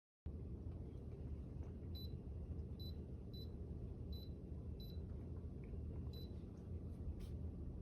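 Six short electronic beeps at uneven spacing, typical of a humidifier's touch-control panel being pressed, over a steady low rumble.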